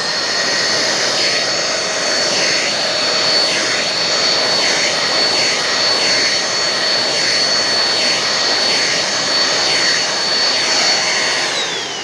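Mondial Turbo Cycle 1100W upright stick vacuum running steadily at full suction, an even rush of air with a high motor whine. Near the end it is switched off and the whine falls away as the motor spins down.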